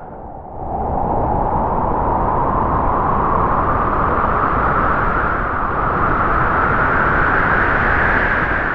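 Howling wind sound effect: a loud rushing gust that swells up about half a second in, its whistling pitch slowly rising and then sinking, and fading near the end.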